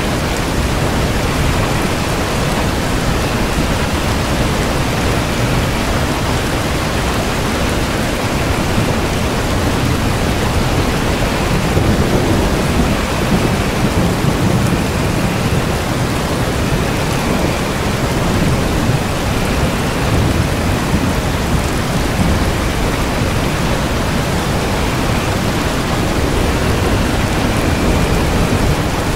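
Steady heavy rain, with a low rumble of thunder swelling about halfway through.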